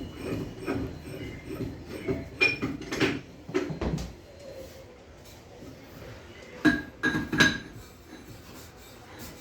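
Metal core-drilling gear being handled: a run of irregular clanks and knocks, then a quieter stretch, then three or four sharp metallic strikes with a ringing clink, about seven seconds in.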